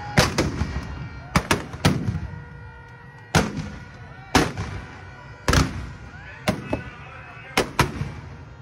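Firecrackers packed inside a burning Ravana effigy going off as about a dozen sharp, loud bangs at irregular intervals, some in quick pairs.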